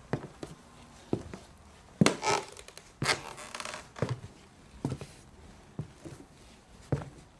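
Footsteps on a hardwood stage floor, walking slowly at about one step a second, with a longer scraping sound between about two and four seconds in.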